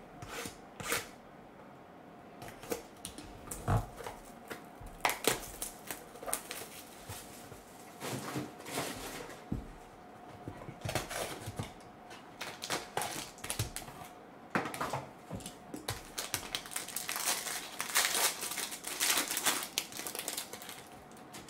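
A cardboard hockey card box being slit open with a box cutter, its lid opened and the wrapped pack inside handled: scattered clicks and scrapes of cardboard, with bursts of crinkling and tearing wrapper about eight seconds in and again near the end.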